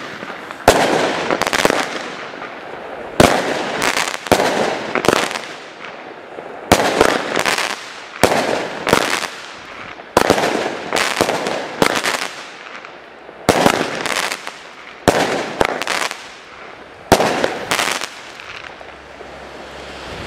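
Pyroweb Edition "Fusion" fireworks battery firing its shots one after another: a long run of sharp bangs about one a second, each trailing off briefly.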